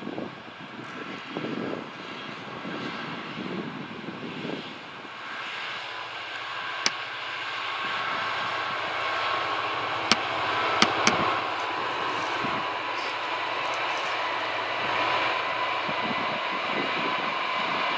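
Freight train passing: a Class 66 diesel locomotive's engine running as it goes by, then a long rake of loaded hopper wagons rolling past with a steady rolling noise. A few sharp clanks stand out midway.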